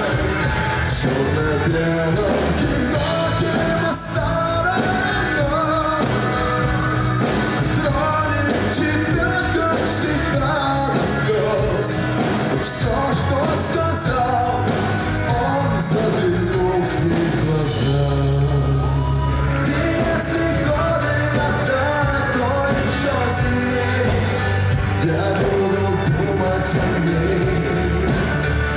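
A man singing a pop song into a microphone, backed by a live band of drums, bass, guitar and keyboards. About 18 seconds in, the drums drop out briefly under a held bass note.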